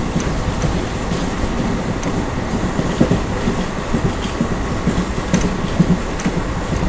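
ICF passenger coach running along the track: a steady low rumble of wheels on rail with irregular knocks and clicks over the rail joints.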